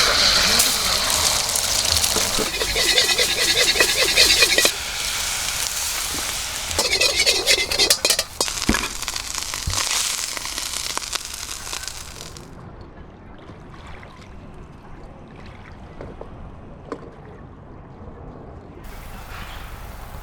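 Fried rice sizzling loudly in a wok over a campfire, with the rhythmic scrape of stirring and tossing. About twelve seconds in it cuts abruptly to a much quieter stretch with scattered small crackles, and the sizzling hiss returns near the end.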